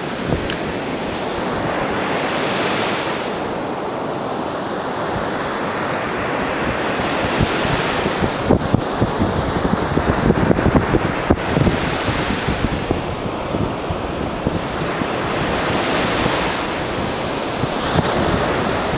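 Ocean surf breaking and washing up the beach, its hiss swelling and fading every several seconds, with wind buffeting the microphone, strongest midway.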